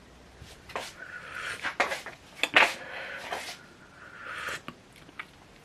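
Kitchen clatter: dishes and utensils knocking and scraping, with a string of sharp clicks and several short scraping noises.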